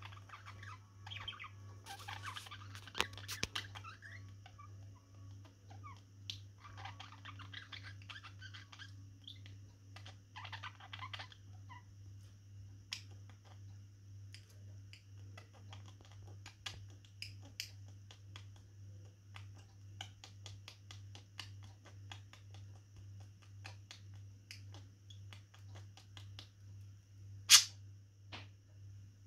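Budgerigars chattering softly in a few short bursts, with scattered small clicks and one sharp, louder click near the end. A steady low hum runs underneath.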